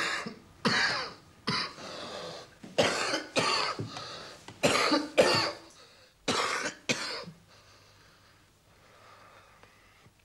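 A man's coughing fit: about ten harsh coughs in quick groups over some seven seconds, then it stops.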